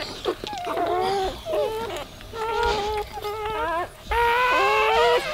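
Newborn Weimaraner puppies crying: a run of short, high, wavering squeals and whimpers, about six of them, with a longer, steadier cry from about four seconds in.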